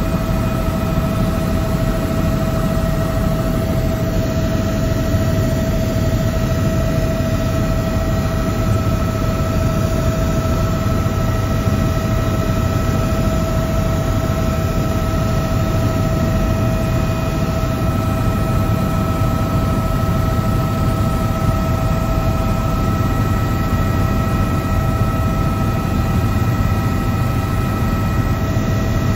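Helicopter in steady flight heard from inside the cabin: a constant low rumble of engine and rotor with a steady whine above it.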